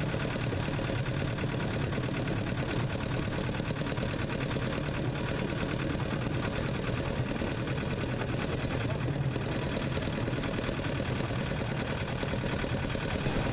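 Small narrow-gauge diesel locomotive's engine running steadily as it hauls the train, heard from the carriage directly behind it.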